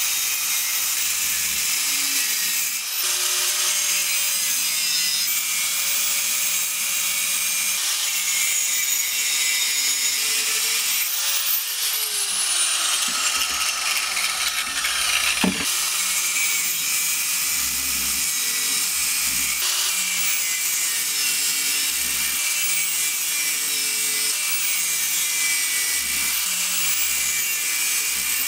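Angle grinder and rotary tool grinding a steel knife blank: a continuous high grinding hiss of the abrasive wheel on steel. About halfway through the motor's pitch falls as it slows, then it starts again abruptly.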